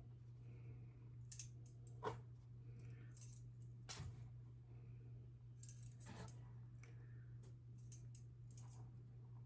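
Faint, scattered clicks and light scrapes of a tablespoon against a bowl while cocoa is spooned into sugar, over a low steady hum.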